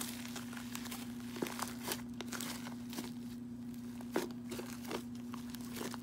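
Hands kneading and squishing fluffy shaving-cream slime, giving irregular sticky crackles and small pops. The slime may be overactivated. A steady low hum runs underneath.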